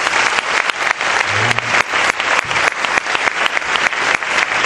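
Audience applauding: many people clapping together, dense and sustained.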